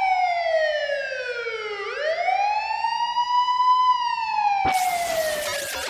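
Wailing siren sound effect played as a segment bumper: one pitched tone slides down for about two seconds, swings back up, then falls again. About five seconds in, a noisy burst of the jingle's music cuts in over it.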